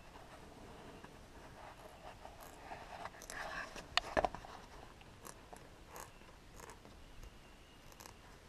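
Scissors snipping and trimming a piece of rubber: scattered faint cuts and clicks, with a louder run of sharp snips about three to four seconds in.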